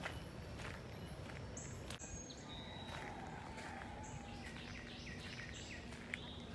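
Songbirds chirping and calling, short high notes coming one after another throughout, over a steady low background noise.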